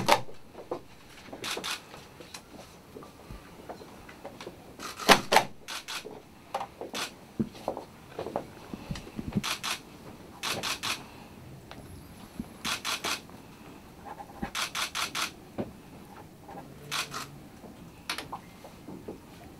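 A rubber office stamp pressed onto papers on a wooden desk, with paper handling and pen-on-paper scratching, broken by about a dozen short runs of three or four quick, sharp clicks.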